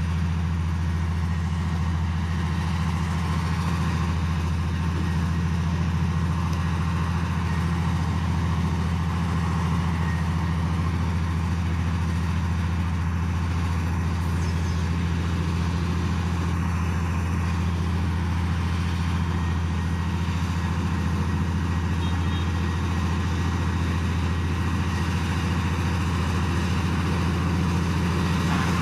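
Heavy diesel engine running steadily at one constant speed, a deep even drone with no revving or change in pitch.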